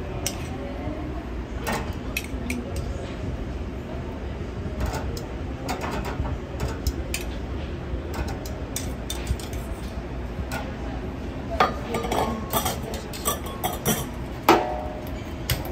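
Stainless steel tongs clinking and scraping against a steel bowl, a wire rack and a metal tray as slices of pork are laid out. The clinks are scattered and grow louder and more frequent in the second half, over a steady low rumble of kitchen background noise.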